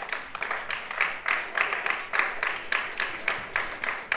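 Audience applauding, the claps falling into a steady rhythm of about four to five a second.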